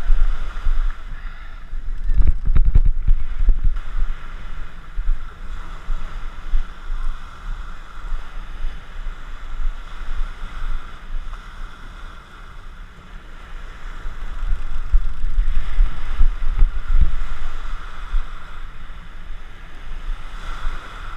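Small surf washing up the beach, with wind buffeting the microphone; the rumble swells twice, briefly a couple of seconds in and for longer in the second half.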